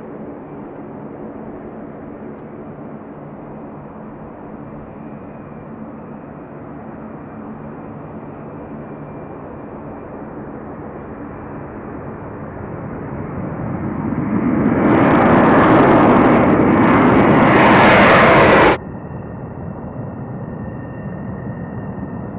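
B-52 Stratofortress's eight turbofan engines running at takeoff power: a steady rumble that swells to a much louder climax as the bomber lifts off and climbs, then cuts off abruptly. After the cut, a B-1 Lancer's jet engines run more quietly, with a steady high whine.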